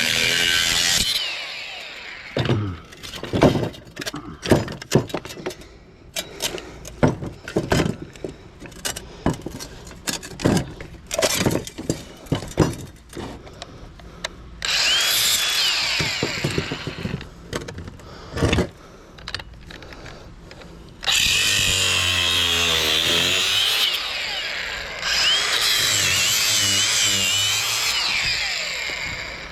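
Handheld power tool cutting into an electric motor's metal housing in runs of a few seconds. Between the runs comes a long stretch of many sharp metal knocks and clanks.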